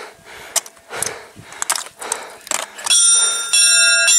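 Mountain-summit bronze bell rung by pulling its chain: two strikes about half a second apart near the end, each leaving a long metallic ring of several steady tones. Before the bell, a run of short breathy puffs.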